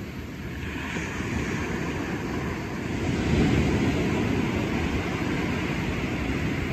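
Ocean surf: a steady rushing rumble of waves breaking and washing in, swelling about three seconds in.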